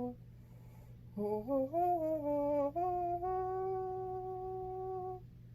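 A woman humming a short wordless tune: a few rising notes, then one long held note for about two seconds before stopping.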